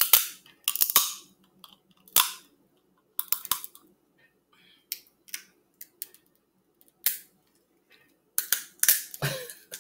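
Crab leg shells cracking and snapping as they are broken open and eaten close to the microphone. A run of sharp, irregular cracks that comes thickest near the end.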